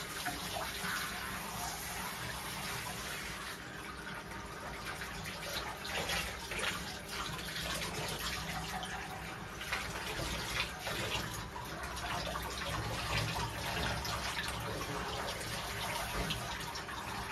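Handheld shower head spraying water over a wet dog in a bathtub, a steady hiss of spray with water splashing off the coat and running into the bath.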